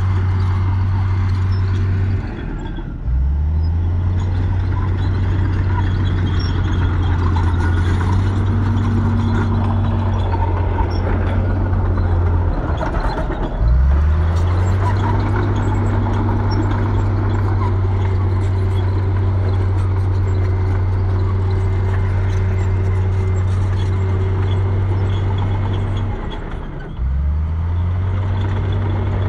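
Heavy diesel engines running at steady high revs, the pitch dropping and climbing back three times: about 3 seconds in, about 13 seconds in, and near the end.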